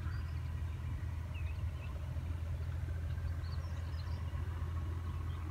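Steady low rumble of outdoor ambience, with a few faint bird chirps over it.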